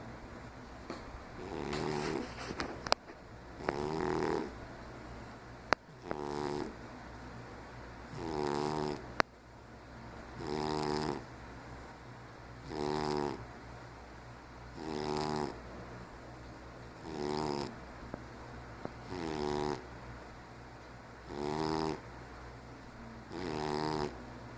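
A 15-year-old cat snoring in its sleep, one snore about every two seconds, each lasting about a second. Three sharp clicks come in the first ten seconds.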